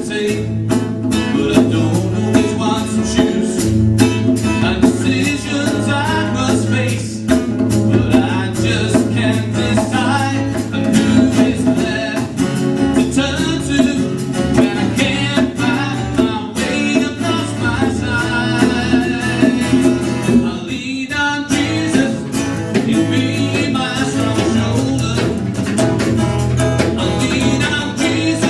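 Live acoustic worship song: a man singing over a strummed acoustic guitar, with steady hand percussion keeping the beat. The accompaniment drops out for a moment a little past two-thirds of the way through.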